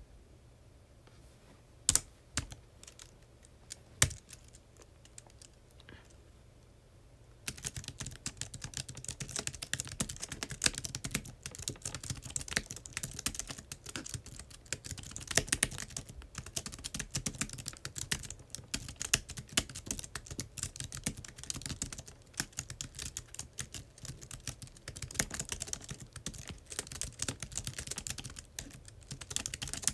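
Typing on a computer keyboard: two single sharp clicks in the first few seconds, then steady, fast typing from about seven seconds in.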